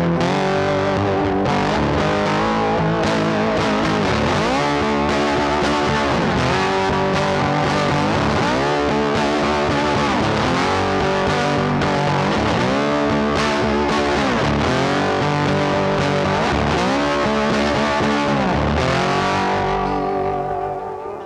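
Background rock music led by distorted electric guitar, with pitch bends.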